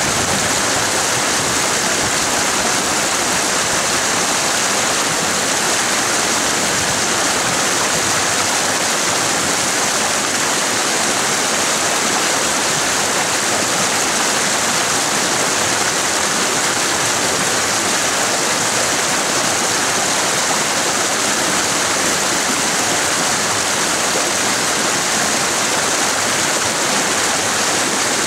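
Mountain creek rushing over boulders in small cascades: a loud, steady rush of white water.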